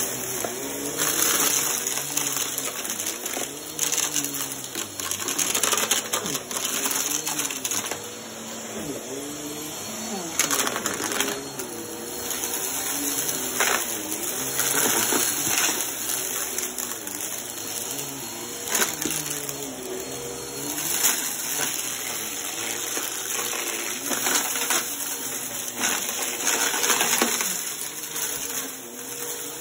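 Upright vacuum cleaner running as it is pushed back and forth over carpet, its motor pitch rising and falling every couple of seconds with the strokes. Frequent sharp clicks and rattles come from small bits of spilled debris being sucked up.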